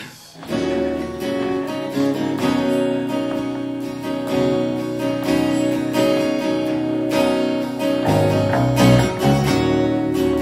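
Acoustic guitars strumming chords with a djembe hand drum, the song starting about half a second in.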